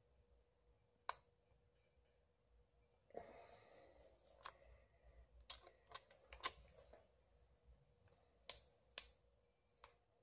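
Sharp, irregular clicks as a torque wrench fitted with an angle gauge is worked on a HEMI V8's connecting rod bolts, at the stage where each bolt is turned a further 60 degrees after 30 ft-lb. A short rustle of handling comes a little after three seconds, and the loudest two clicks come close together near the end.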